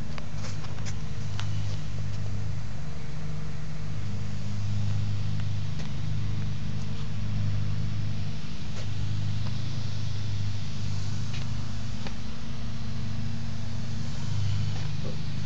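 Steady low mechanical hum with a droning undertone that swells and eases slightly, over a light hiss, with a few faint clicks.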